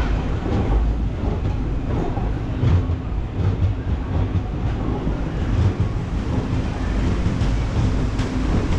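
Indian Railways passenger coach rolling along a station platform, heard from its open doorway: a steady low rumble of wheels on rail with scattered faint clicks from the track.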